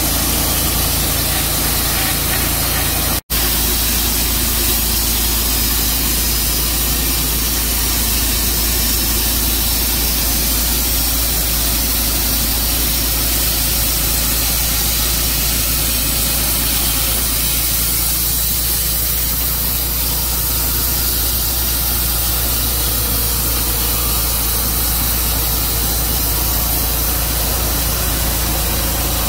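Tru Cut sawmill's engine running steadily under a broad hiss of the saw, with a momentary dropout about three seconds in.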